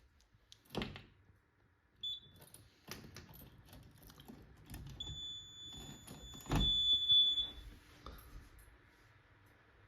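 A high-pitched electronic beep from fire alarm equipment: a brief beep about two seconds in, then a longer steady beep of about two and a half seconds. Clicks and knocks of handling run around it, with a heavy thump during the long beep.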